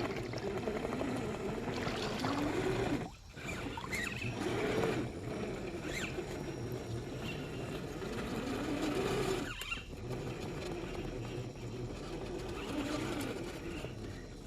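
Traxxas TRX4 RC crawler's 550 brushed motor and geartrain whining as it crawls, the pitch rising and falling with the throttle, with two brief stops.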